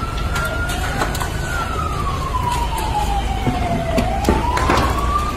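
Emergency-vehicle siren wailing, one tone sliding slowly down and then rising again about four seconds in, over a steady low rumble. Sharp cracks and pops from the burning building sound through it.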